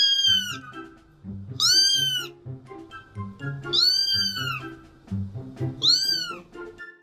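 Cat meowing over and over, a drawn-out meow about every two seconds, each rising then falling in pitch, over background music.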